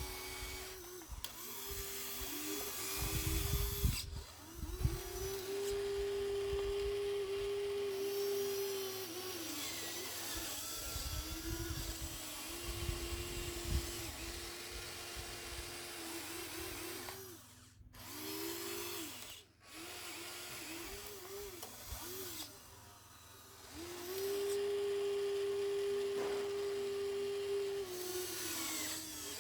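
Whine of a radio-controlled construction model's small electric motor, a steady tone that starts and stops many times and sags in pitch as it comes under load, with a few short low rumbles.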